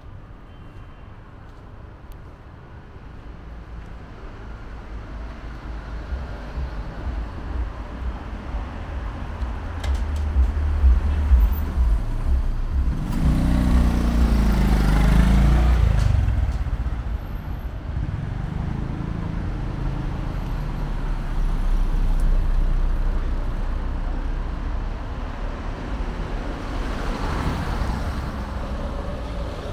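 Road traffic on a city street: cars driving past close by. The loudest pass comes about halfway through, its engine pitch dropping as it goes by, and another car passes near the end.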